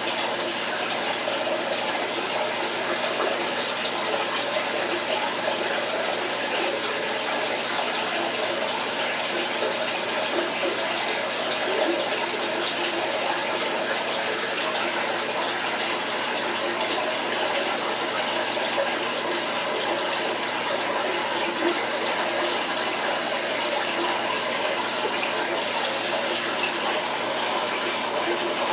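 Steady, unbroken rush of circulating aquarium water, with a faint steady hum beneath it.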